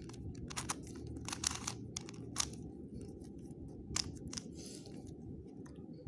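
Plastic puzzle cube being turned by hand: irregular sharp clicks of its layers snapping round, a few a second, over a steady low hum.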